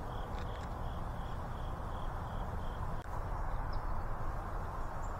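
A cricket chirping in an even rhythm, about three short high chirps a second, that stops about three seconds in, over a steady rushing background noise.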